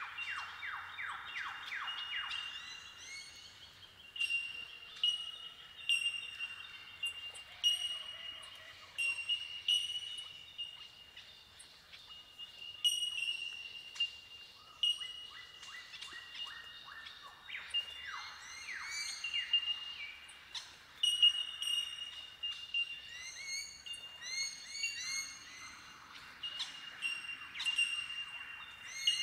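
A colony of bell miners (bellbirds) gives incessant ringing, bell-like 'tink' calls. The calls overlap into a windchime-like chorus around one steady high pitch, broken by runs of quick falling notes.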